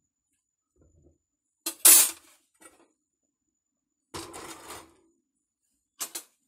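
Steel tongs clinking and scraping against a clay pot and the gas stove: three short bursts, the loudest about two seconds in, a rougher scrape a little past four seconds, and a short clink near the end.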